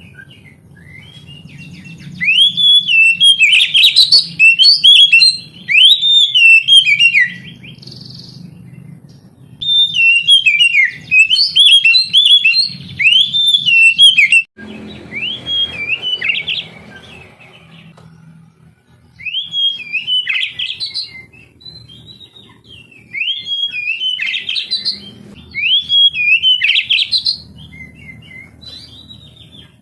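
Oriental magpie-robin (kacer) singing in bouts of loud, slurred whistled phrases that rise and fall. Each bout lasts a few seconds, with short pauses between them, over a faint low hum.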